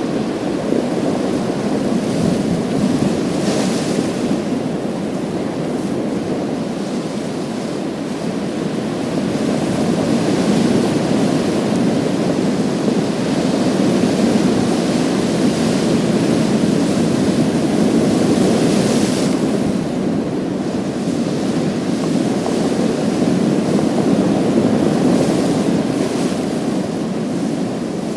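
Waves breaking and washing over a pebble beach in a continuous surf that swells and eases, with a brighter hissing wash three times.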